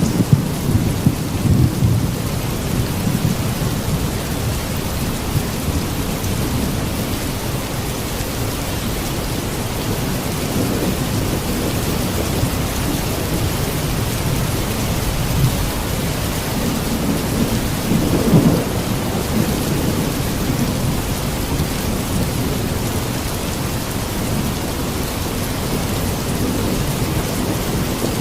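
Steady heavy rain with low rolling rumbles of thunder beneath it, the strongest swell about two-thirds of the way in.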